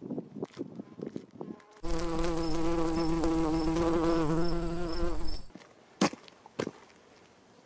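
A bee buzzing close by: a loud, steady, slightly wavering drone that starts about two seconds in and stops about three and a half seconds later. Before it, soft footsteps crunch on a dirt road, and near the end there are two sharp clicks.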